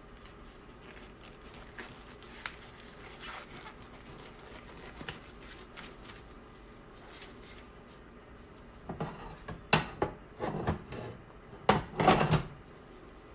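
Kitchen clatter of dishes and utensils: a few faint clicks, then a flurry of sharp knocks and clinks about nine seconds in, loudest around ten and twelve seconds.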